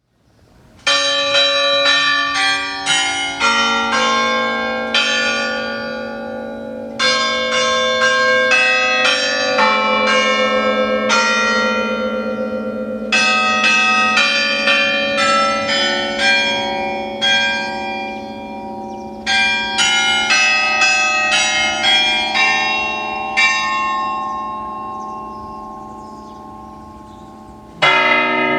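Clock-tower bells chiming a tune in four quick phrases separated by pauses, each strike leaving a long ringing tail that slowly fades. Near the end a louder, lower bell strikes.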